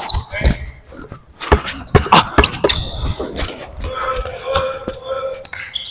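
Basketball game sounds on a hardwood gym court: a ball bouncing and players' running footsteps, heard as many scattered thumps, with a few short squeaks.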